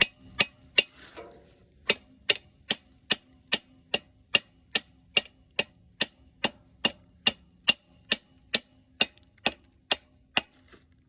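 A hammer striking a piston in a Wisconsin V4 engine block over and over, in a steady, even rhythm of about two and a half blows a second. Each blow is a sharp metal clang that rings briefly. There is a short pause after the first three blows.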